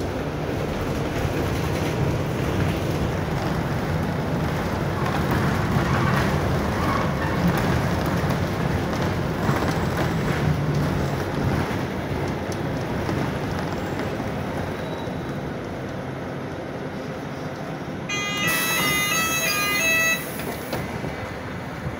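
Mercedes-Benz O500U city bus heard from inside the cabin: diesel engine and road noise while driving, easing off as the bus slows. Near the end a hiss of air comes together with a run of short beeping tones as the doors open.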